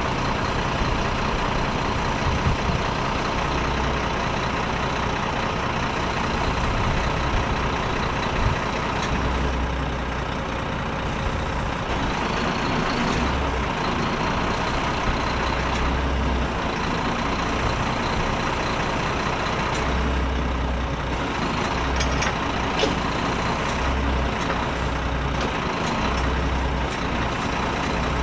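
Diesel engine of a Renault Kerax 380 DXI truck running steadily, driving the hydraulics of its Palfinger PK16001-K knuckle-boom crane as the boom is folded. A deep rumble swells for a second or two at a time, again and again, as the crane is worked.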